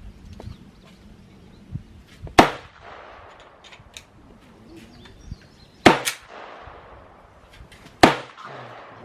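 Three loud gunshots a few seconds apart, each ringing out briefly across the range, with fainter pops between them.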